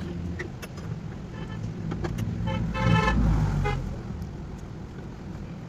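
Car engine running steadily at idle, with a car horn sounding for about a second in the middle.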